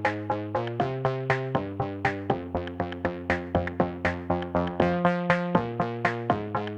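Electronic background music: a steady pulse of plucked synthesizer notes over sustained chords.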